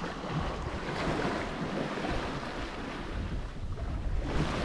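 Wind buffeting the microphone over the rush of the sea around a sailing yacht underway, with a brief louder surge of noise near the end.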